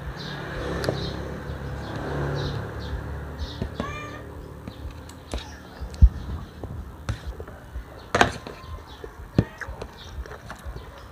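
Spoon and fork clinking and scraping against a disposable aluminium foil tray while eating, with a few sharp clicks; the loudest, a thump, comes about six seconds in. A short warbling animal call sounds in the background about four seconds in.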